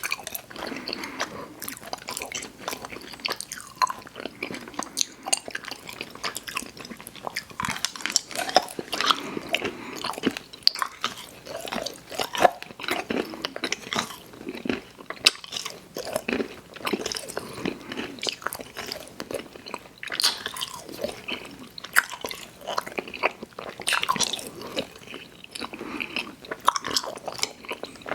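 Close-miked chewing and biting of sour gummy worms cereal: continuous, irregular, moist clicks and crackles of mouth sounds, with crunchy bites mixed in.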